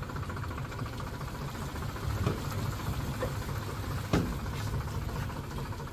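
A tractor's diesel engine running steadily as it drives through floodwater. A few sharp knocks come over it about two, three and four seconds in, the last the loudest.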